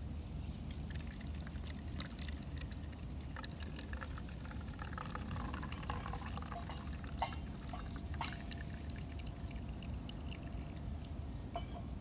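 Green tea poured in a thin stream from a clear Tritan plastic kyusu teapot into a small clear cup, splashing steadily from about a second in and thinning to a trickle and drips near the end. Two sharp clicks come a second apart in the middle of the pour.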